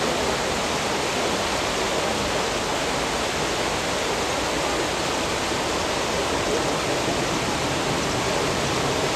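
Turbulent water rushing and churning, a steady even noise without breaks.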